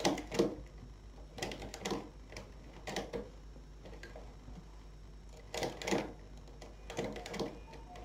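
Knitting-machine needles and a three-prong transfer tool clicking and clacking as stitches are bound off by hand, in short clusters every second or two with a longer pause in the middle.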